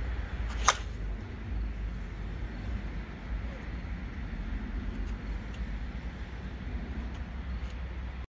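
A softball bat striking the pitched ball once, a sharp crack with a short ring, about a second in, over a steady low outdoor rumble.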